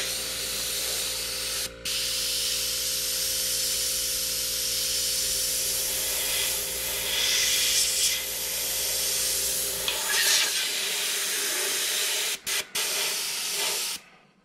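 Airbrush hissing steadily as it sprays paint, broken by a few brief pauses of the trigger, and stopping near the end. Under it a steady machine hum runs and cuts off about two-thirds of the way through.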